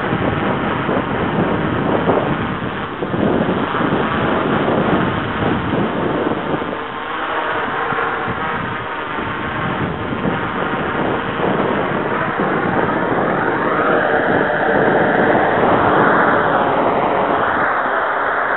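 Quadcopter's electric motors and propellers buzzing as it hovers low, with wind buffeting the microphone. In the last few seconds the motor pitch rises, dips briefly and rises again.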